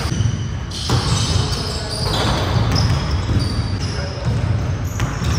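Basketballs bouncing on a hardwood gym floor, echoing in a large hall.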